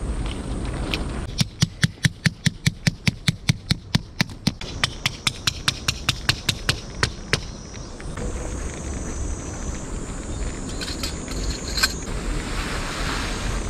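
A fast, even series of sharp knocks, about four a second, running for some six seconds and then stopping, followed by a faint steady high tone and a few light clicks.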